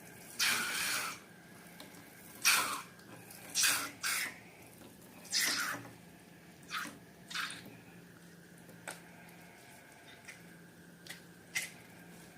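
Slime being worked, a run of about eight short wet squishes over the first several seconds, then a few small faint clicks near the end.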